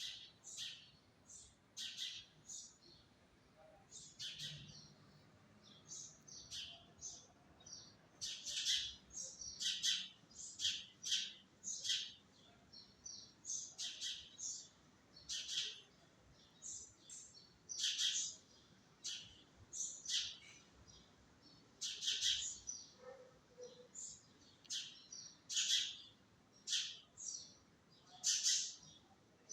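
Small birds chirping: a busy, irregular run of short, high-pitched chirps, several a second, thicker from about eight seconds in.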